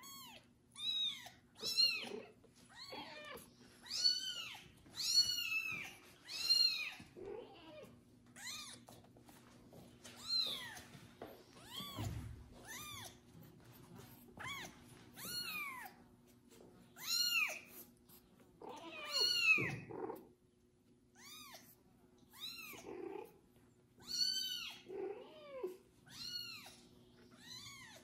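A very young kitten meowing loudly and over and over, each high cry rising and falling in pitch, about one a second with a few short pauses. According to the owner it is not hunger: the newly bathed kitten is crying for a mother's warmth and attention.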